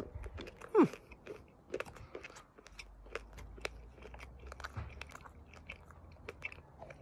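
Close-up chewing and crunching of a small chocolate sweet coated in crunchy sugar sprinkles, with many small crisp crunches. A short falling vocal 'mm' comes about a second in.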